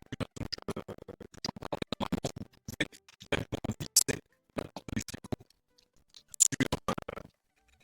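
Scratching and scraping made of rapid clicks and rubs, in about four spells of a second or two each with short pauses between.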